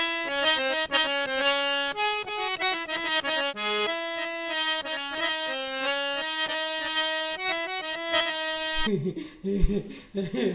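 Background music: an instrumental melody of short, steady notes, which breaks off about nine seconds in.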